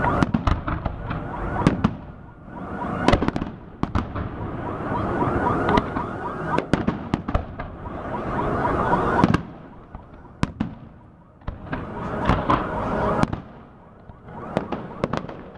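Festive fireworks display: many sharp bangs of bursting shells, irregularly spaced, over a dense hiss, with two short lulls in the second half.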